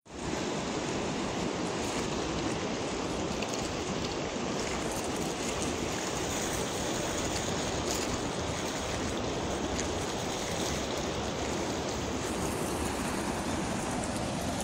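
Steady rush of a fast-flowing river at a dam, a continuous water noise.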